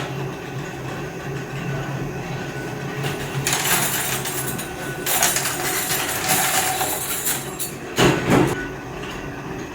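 Workshop machinery running with a steady hum, broken by two stretches of harsh metal clattering and a loud bang about eight seconds in.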